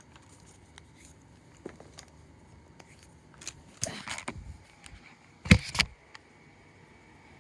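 Objects being handled close by: scattered clicks, a short scuffle about four seconds in, then a sharp clatter of a few quick knocks about five and a half seconds in.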